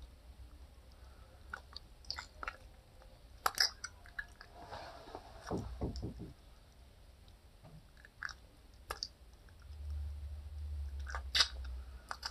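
A person eating seafood boil close to the microphone: chewing and biting, with scattered sharp clicks and crunches at irregular intervals.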